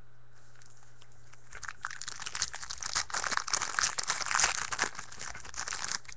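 Trading-card pack wrapper being torn open and crinkled by hand: a dense crackle that starts about a second and a half in and stops just before the end.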